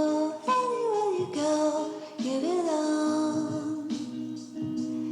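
Intro music with a singing voice: held, gliding vocal notes over a steady instrumental backing.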